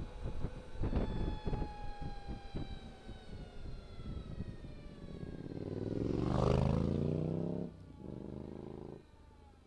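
Wind buffeting the microphone over the high whine of an Energica Experia's electric motor, which falls slowly in pitch as the bike slows. About six seconds in, another vehicle rushes close past, the loudest sound here, and cuts off sharply.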